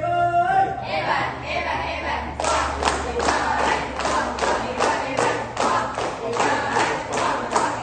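A group of school cadets calling out in unison, a held shout ending about half a second in, then voices over a steady body-percussion beat of sharp hits, about three a second.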